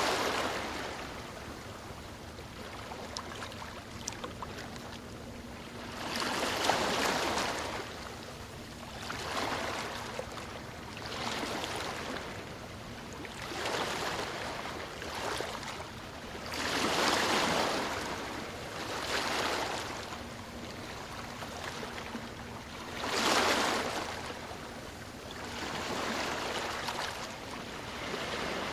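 Ocean waves breaking and washing up the shore, one surge of rushing surf every few seconds over a steady hiss, with bigger waves about 7, 17 and 23 seconds in.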